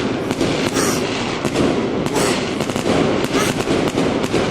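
Fireworks going off in a dense, irregular run of cracks and bangs.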